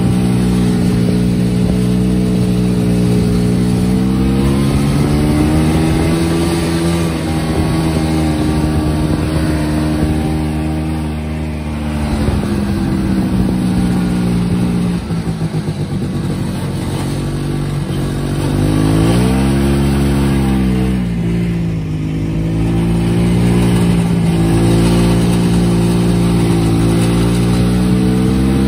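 Snowmobile engine running under way, its pitch rising and falling with the throttle: it climbs about a quarter of the way in, drops back, falls to a lower, rougher run around the middle, then revs up briefly and settles into a steady run.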